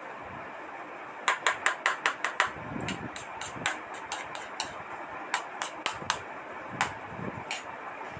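Sharp clicks and clinks of fast eating from a plate: a quick run of about eight starting a second in, then scattered single clicks until near the end.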